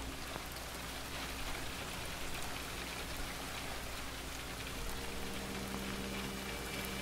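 Steady rain falling, an even hiss of rain ambience. Faint held musical notes come in about five seconds in.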